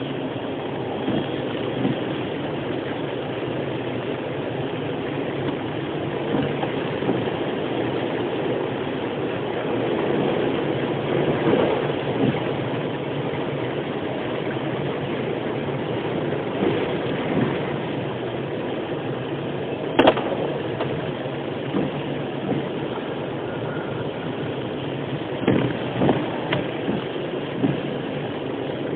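Inside a car moving slowly on a wet road in the rain: a steady rumble of engine and tyres. A sharp click comes about twenty seconds in, and a few short knocks near the end.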